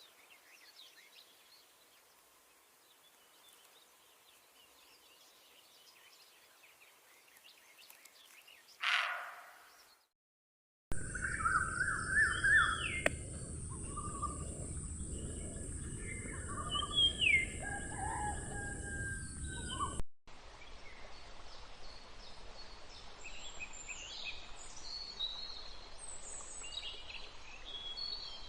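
Birds calling and chirping in three short outdoor recordings joined by abrupt cuts. The middle section is louder, with a steady high-pitched tone under the calls.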